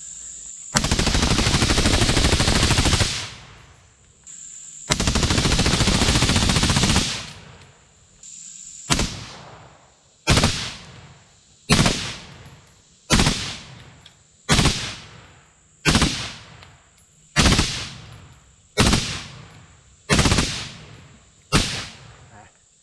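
AR-15-style carbine fitted with a Hoffman trigger kicker firing rapid strings of shots: two long strings of about two seconds each, then about ten short bursts a little over a second apart. Insects shrill steadily in the gaps.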